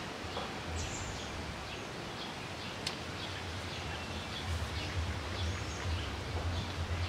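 Steady outdoor background hiss with faint, scattered chirps of small birds. A low rumble grows stronger in the second half, and there is one sharp click near the middle.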